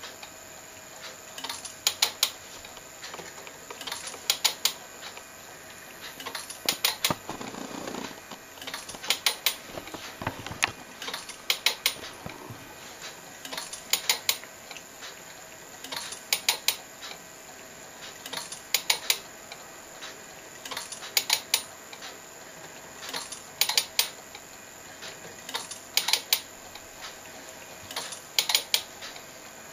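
Home-built 16mm/double-eight telecine working frame by frame: a cluster of three or four sharp mechanical clicks about every two and a half seconds as the film is advanced and the converted compact camera takes its shot, over a faint steady hum.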